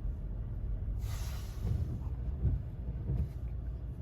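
Toyota Tacoma pickup driving on snowy streets on BFGoodrich KO2 all-terrain tyres: a steady low rumble of engine and road noise. A short hiss comes about a second in, and a few low thumps follow.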